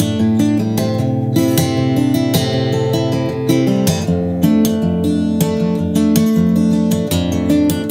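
A BSG D27F steel-string acoustic guitar played fingerstyle: thumbed bass notes and picked strings mixed with quick strums, going around one chord shape high on the neck a couple of times.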